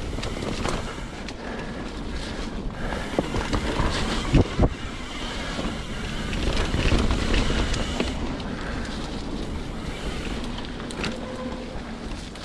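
Mountain bike riding down dirt singletrack: tyres rolling over dirt and roots, with rattling knocks from the bike over bumps, the loudest pair a little past four seconds in, and wind rumbling on the microphone.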